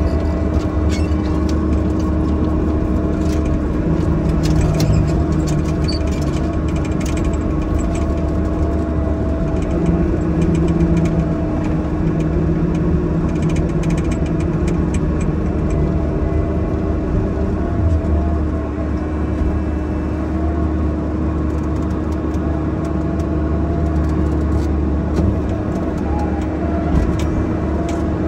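Bobcat E50 mini excavator's diesel engine running steadily under hydraulic load, heard from inside the cab, with a steady drone. Occasional clicks and knocks sound over it.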